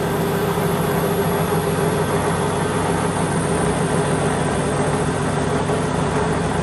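Wadkin AGS 10-inch table saw running steadily on its 2.2 kW single-phase electric motor, just switched on: a loud, even hum with a thin high whine over it.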